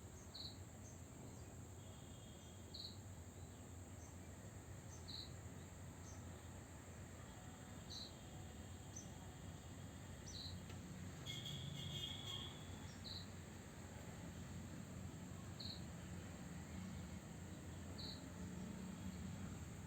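Faint insect chirping: a steady high trill with a short, higher chirp about every two and a half seconds, and a brief busier patch of chirps about halfway through, over a low steady hum.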